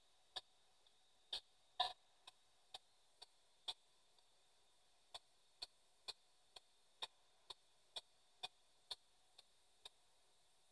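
P-SB7 spirit box sweeping radio frequencies through an external speaker: faint, irregular clicks, about one or two a second.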